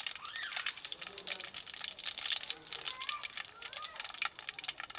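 Cumin seeds crackling and popping in a hot clay pot over a wood fire, a dense run of fine crackles. Faint voices in the background.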